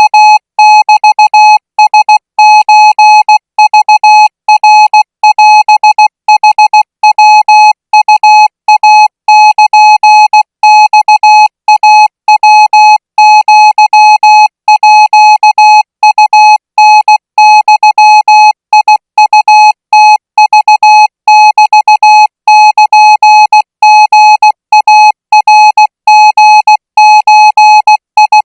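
Morse code tone sending Thai-language Morse at 20 words per minute: a single steady beep keyed on and off in short dots and longer dashes, with brief gaps between characters.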